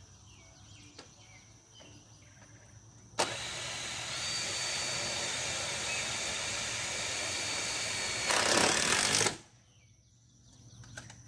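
Cordless drill running as it drives a screw through the metal roof rake trim. It starts abruptly about three seconds in, runs steadily for about five seconds, gets louder in the last second as the screw seats, then stops suddenly.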